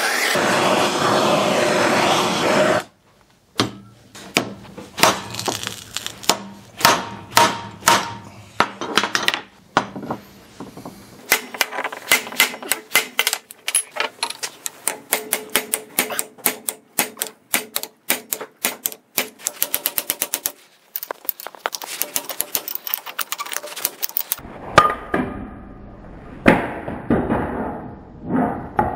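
Steady hiss for the first three seconds, cutting off suddenly, then a long series of hammer blows on a steel crankshaft held in a vise. The blows come about one every half second at first, then as a fast run of quick taps.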